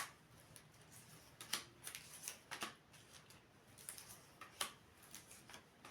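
Faint, scattered clicks and rustles of divination cards being handled, a handful of short sharp ticks a second or so apart.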